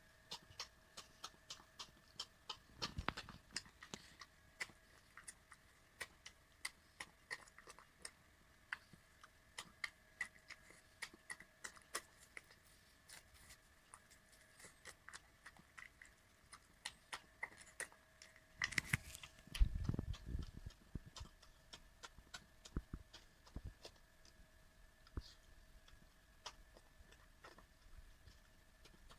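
Old miniature dachshund eating soup and food from a bowl: quick wet mouth and tongue clicks, several a second. There are a few louder knocks about three seconds in and again about two-thirds of the way through, over a faint steady hum.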